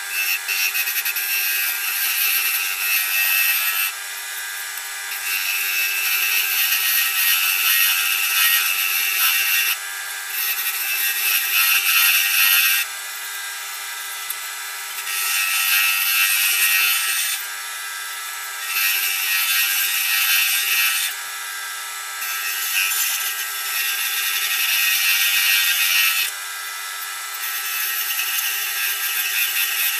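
Wood lathe spinning a celery wood pen blank while it is hand-sanded with sandpaper. The sanding is heard as a hiss in repeated spells of two to four seconds with short pauses between, over the lathe's steady hum.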